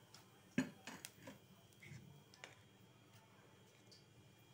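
Quiet room tone broken by a few light clicks or taps, the loudest about half a second in and a few smaller ones over the next two seconds.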